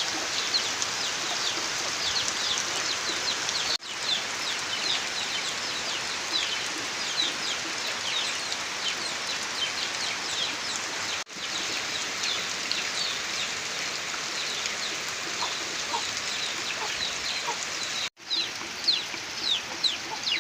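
Steady rain falling, with a constant chorus of short, high chirps from birds and clucking chickens over it. The sound drops out for an instant three times.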